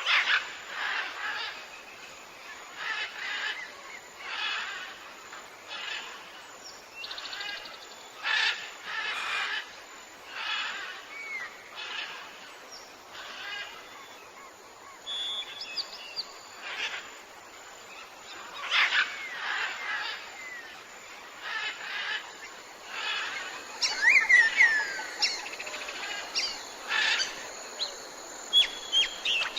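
Tropical jungle birds calling: short, rough calls repeat every second or two, with whistled rising and falling glides near the end, over a steady background hiss.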